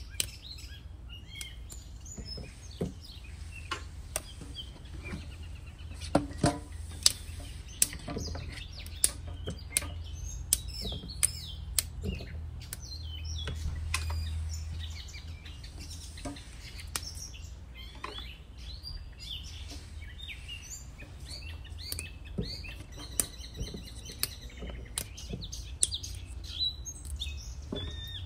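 Crisp snaps of fresh yardlong beans (sitaw) being broken by hand, sharp clicks about once a second. Birds chirp throughout, busier in the second half, over a steady low hum.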